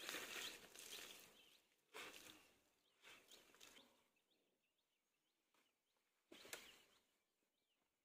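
Faint splashing and dripping of water as a soapy, wet shirt is lifted out of a bucket and wrung out by hand, in four short bursts over the first seven seconds. Birds chirp faintly in the background.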